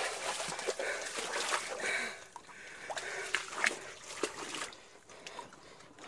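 Bats squeaking and chittering, with footsteps splashing through shallow water on the tunnel floor; the sound dies down near the end.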